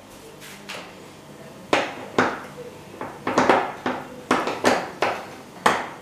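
A run of about ten sharp metallic clanks and knocks over four seconds as the filled stainless-steel cylinder of a hand-cranked horizontal sausage stuffer is set into its frame and fitted in place.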